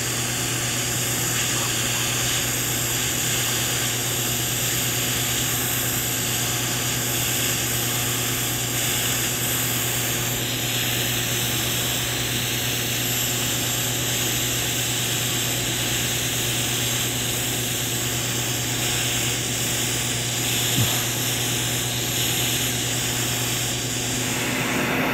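TIG (GTAW) welding arc burning steadily on stainless steel pipe during the cap pass: an even hiss over a steady low hum, with no break for the whole pass.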